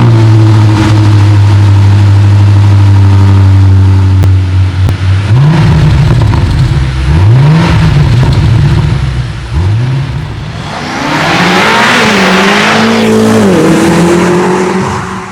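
BMW M5 CS twin-turbo V8 through a Fabspeed catback exhaust, idling steadily, then blipped three times from about five seconds in. Near the end it is held at higher revs for a few seconds, the pitch climbing and wavering with loud exhaust rasp.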